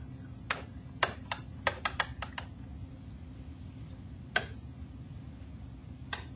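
Stylus tapping on a pen-input screen while writing by hand: a quick run of about eight sharp taps in the first two and a half seconds, then two single taps later, over a steady low hum.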